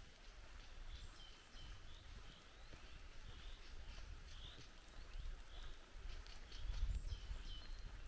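Small birds chirping faintly, short high calls repeating every second or so, over a low rumble that grows louder near the end.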